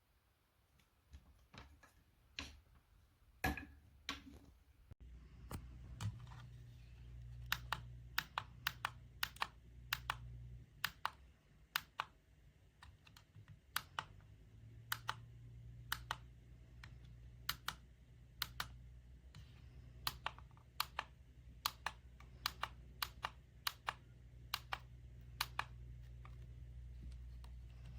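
A run of short, sharp clicks at an uneven pace, like buttons or keys being pressed one after another, over a low steady hum that starts about five seconds in.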